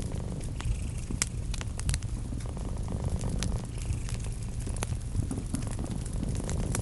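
Wood fire crackling in a fireplace, with scattered sharp pops, over a cat's steady low purr.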